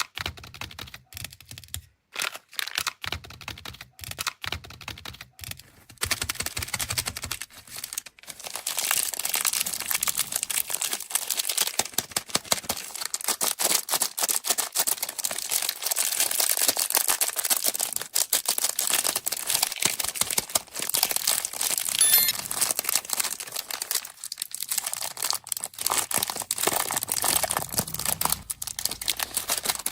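Plastic candy wrappers crinkling and tearing as sweets are unwrapped. Scattered crinkles for the first six seconds, then dense, continuous crinkling from about six seconds in.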